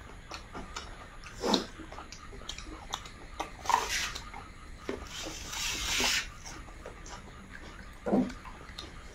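Close-miked mouth sounds of people eating rice and curry by hand: wet chewing, lip smacks and small clicks, with a louder smack about a second and a half in and again near four seconds, and a longer hissing slurp or sniff around five to six seconds.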